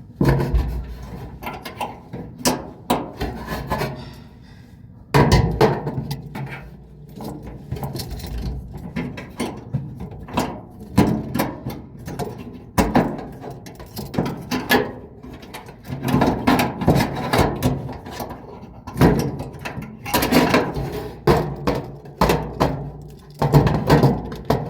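Irregular clicks, knocks and scrapes of tools and parts being handled inside a dryer cabinet while an idler pulley is fitted, in clusters with short gaps between.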